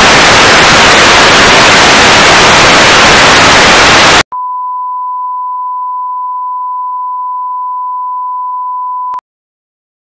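Loud hiss of television static for about four seconds. It cuts suddenly to a quieter steady single-pitch broadcast test tone, which lasts about five seconds and stops abruptly.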